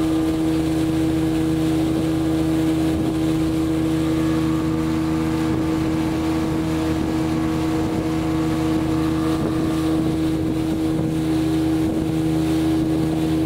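Outboard motor of an open longboat running at a steady cruising speed, one constant even-pitched drone that does not change.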